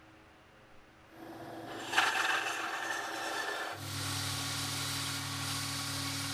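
Belt grinder sanding the end of a wooden knife handle: a scraping hiss begins about a second in and turns sharp at about two seconds, and from about four seconds a steady motor hum runs under the hiss of the belt on the wood.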